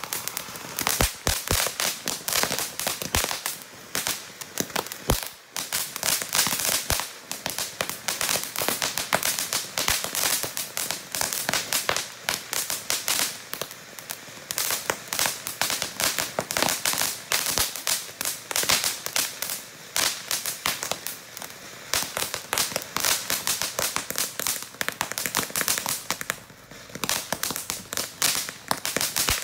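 Consumer firework fountains spraying sparks with dense, rapid crackling pops, starting up sharply at the opening and going on without a break apart from a short lull near the end.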